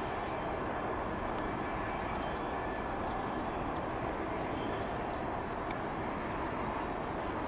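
Steady distant rumble of a diesel locomotive depot, even throughout with no distinct events.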